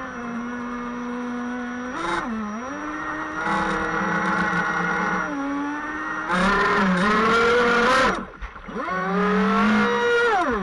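RC speedboat's motor heard from on board, its pitch rising and falling with the throttle: a dip and climb about two seconds in, the loudest, highest run from about six to eight seconds in with water hiss over it, a brief cut-out just after, then it picks up again and dips near the end.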